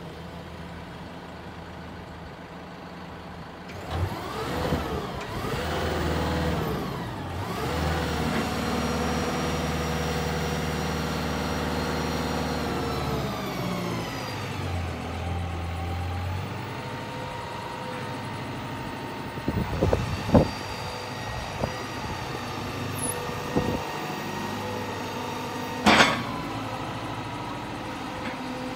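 Caterpillar TH407C telehandler's diesel engine idling, then revving up about four seconds in, its pitch rising and falling before it holds a higher, louder steady run while the boom is raised and extended. It drops back toward idle past the middle, with a few sharp knocks and clunks later on, the loudest near the end.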